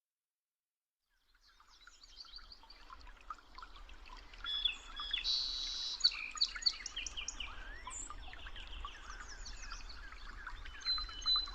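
Several songbirds singing and calling over one another, with many quick chirps, trills and sweeping notes; the sound fades in from silence about a second and a half in.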